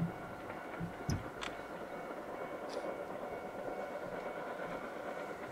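JNR Class D51 steam locomotive D51 200 approaching, heard as a steady rumble. A few sharp knocks come about a second in.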